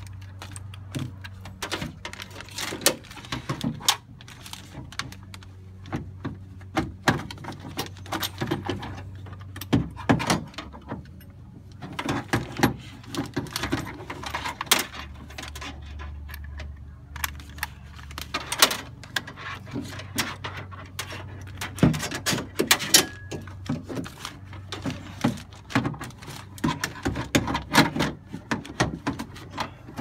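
Clicks, clinks and knocks of a car door lock actuator and latch assembly being handled and worked into a door's sheet-metal shell, plastic and metal parts rattling against the panel, over a steady low hum.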